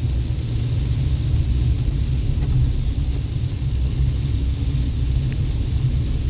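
Chevy Colorado Z71 pickup driving, a steady low rumble of engine and road noise.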